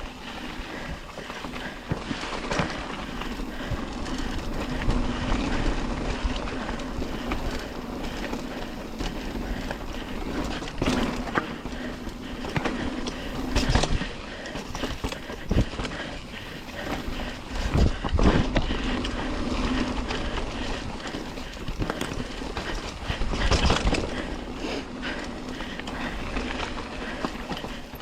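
Bike rolling fast down a dirt trail: a continuous rough rolling noise with frequent knocks and rattles as it goes over bumps, the biggest jolts about 11, 13, 18 and 23 seconds in.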